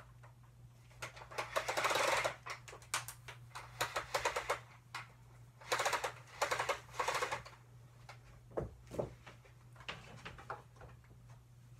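Vacuum cleaner sucking up crunchy debris: bursts of rapid crackling clicks over the machine's steady low hum, the three longest in the first seven seconds and shorter, fainter crackles after.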